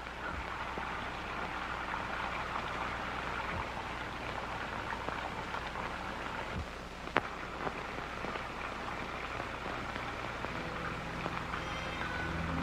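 A steady, rain-like hiss with one sharp click about seven seconds in. Low held tones come in near the end.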